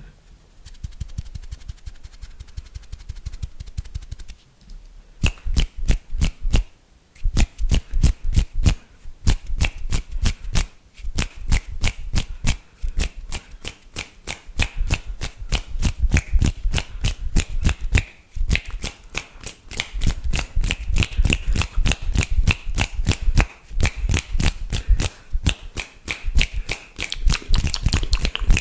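Fast, aggressive wet mouth sounds close to the microphone: a rapid stream of tongue clicks and pops, faint at first and much louder from about five seconds in, with a few short breaks.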